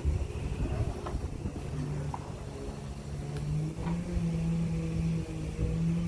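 An engine idling steadily, its note rising slightly a little past halfway, with a few light clinks.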